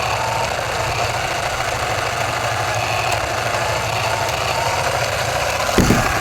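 Radio-controlled car's motor running steadily, with a thump near the end.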